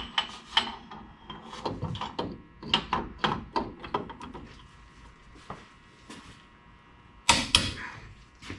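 Irregular metallic clicks and knocks of hand tools and parts being handled while the differential's side adjusters are set for ring-and-pinion backlash, with a louder pair of knocks about seven seconds in.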